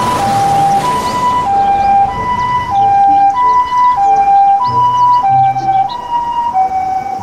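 Japanese ambulance's electronic two-tone siren sounding the alternating high-low "pii-poo" pattern, each tone held about half a second.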